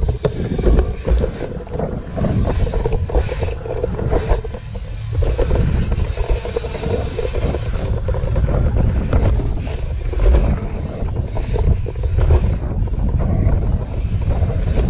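Wind buffeting the microphone of a camera riding on a BMX bike over a dirt track, a loud rumble that swells and dips as the bike speeds over the rollers.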